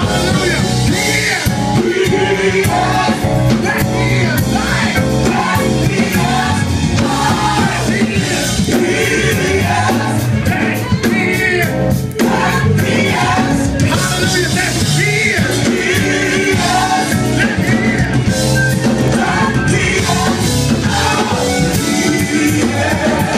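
Gospel choir singing together, loud and sustained, backed by a live band on keyboards, organ, bass guitar, drums and guitar.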